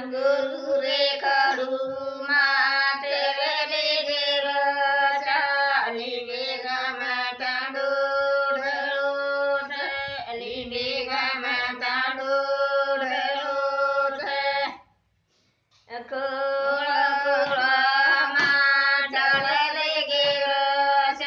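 Elderly women singing a traditional Banjara folk song unaccompanied, in long held, wavering notes. The singing breaks off for about a second roughly fifteen seconds in, then resumes.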